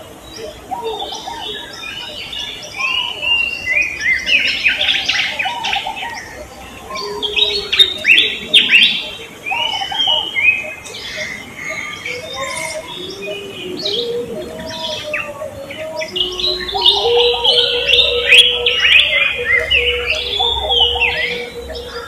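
Several songbirds chirping and calling together, a dense run of quick, falling chirps overlapping one another. About seventeen seconds in, a low steady held note joins under the chirping.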